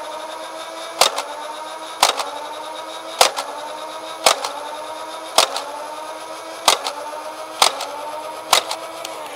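Dart Zone Savage Spin blaster firing foam darts, eight shots about a second apart, over the steady whine of its spun-up flywheel motor. The whine dips in pitch at each shot and climbs back between shots.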